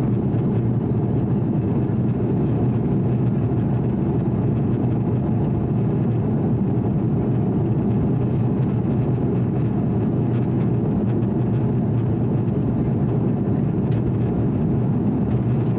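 Steady cabin noise inside an Airbus A330-300 during the climb after takeoff: the low, even rumble of the engines and rushing air, with no change in pitch or level.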